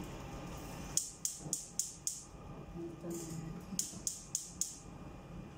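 Two quick runs of short, sharp, high-pitched scraping strokes from a kitchen utensil, about four strokes a second, the first run about a second in and the second near four seconds in.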